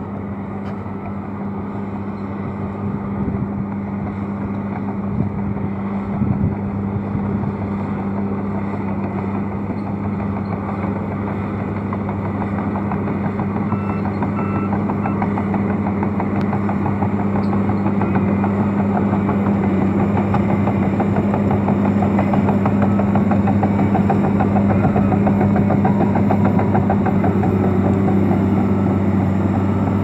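Komatsu D65PX crawler dozer's diesel engine running steadily under load as it pushes earth, getting louder as the machine comes closer, with a few short thumps a few seconds in.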